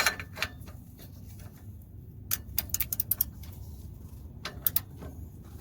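Ratchet wrench clicking in short runs while an oxygen sensor socket tightens a new downstream oxygen sensor: a quick string of clicks about two seconds in, and a few more about a second later.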